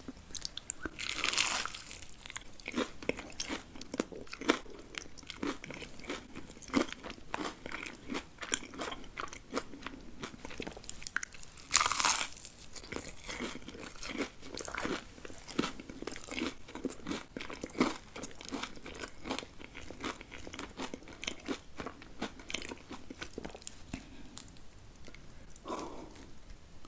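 A person biting into and chewing crunchy food close to the microphone: a steady run of wet, crackling crunches, with two louder bites, one about a second in and one about halfway through.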